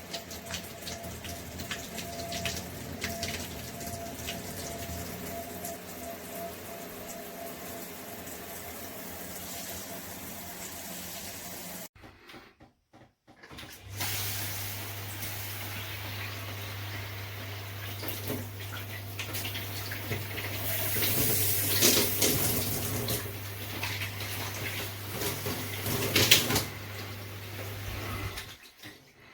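Water spraying from a handheld shower head. It breaks off briefly about twelve seconds in, then runs again with a steady low hum under it and a few louder splashes.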